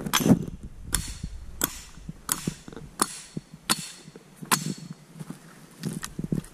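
Hatchet chopping into a log on a chopping stump, splitting it into kindling. About seven sharp strikes come roughly two-thirds of a second apart, then softer knocks near the end.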